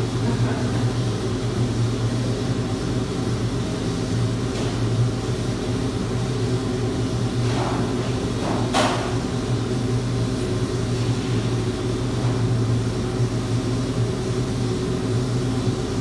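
Steady low machine hum, with one sharp clatter of metal trays being handled about nine seconds in and a couple of fainter knocks before it.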